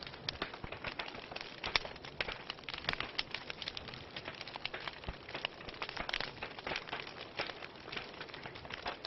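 Wood fire in a fireplace burning, with a steady hiss and many sharp irregular crackles and pops from the logs.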